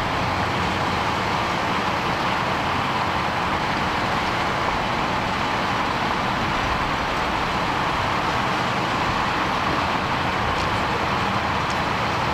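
Steady vehicle noise: an even drone of running engines and road traffic that holds level without change.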